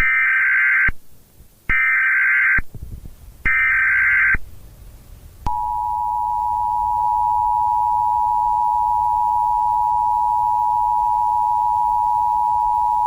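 Emergency Alert System signal: three short bursts of data tones (the SAME header) about a second apart, then the steady two-tone EAS attention signal, which starts about five and a half seconds in.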